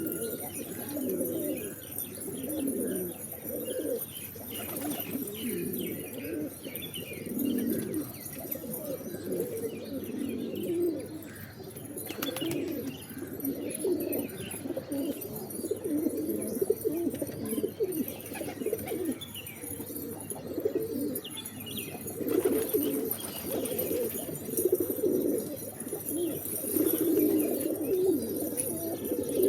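Many pigeons cooing together in a continuous, overlapping low murmur, with higher chirps scattered through it.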